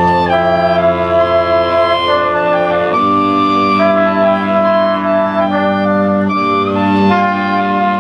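Jazz big band playing live: clarinets and saxophones with trumpets and trombones over upright bass, the whole ensemble holding chords that shift about every second.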